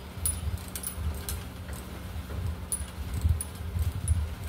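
Hand tools and hardware clinking against metal under a car's dashboard: scattered sharp metallic clicks over dull knocks and bumps while the pedal assembly is being unbolted.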